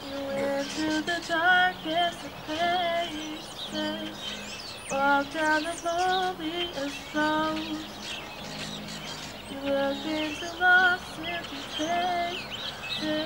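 A young woman singing a slow song while strumming an acoustic guitar through an amplifier, with many birds chirping in the background.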